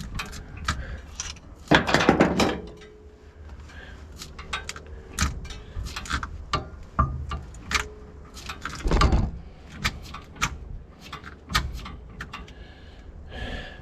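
Metal hardware of a fifth-wheel hitch being handled: a run of sharp clicks and knocks, with a louder clatter and brief metallic ring about two seconds in and a heavy thud near nine seconds.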